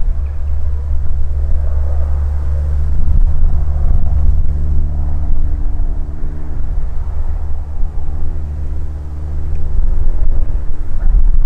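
Cessna F172N Skyhawk single-engine propeller plane flying past while towing a banner: a steady engine and propeller drone, clearer from about four seconds in, over a heavy low rumble.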